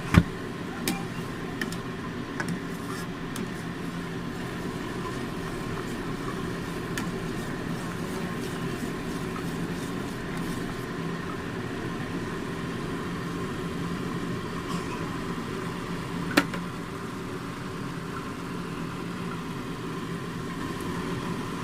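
Steady low rumble of a pot of liquid simmering over a gas flame turned down low. A few sharp clinks of a stirring utensil against the pot in the first couple of seconds, and one louder clink about sixteen seconds in.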